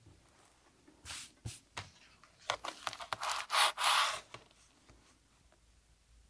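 Fabric being cut and handled on a cutting mat: a few short scraping strokes, the loudest cluster from about two and a half to four seconds in, with lighter rubbing of fabric between them.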